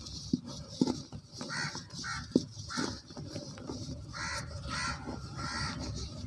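Lumps of soft pure cement crumbling and cracking between bare hands, with a few sharp snaps in the first couple of seconds. Several short, harsh bird calls sound in the background.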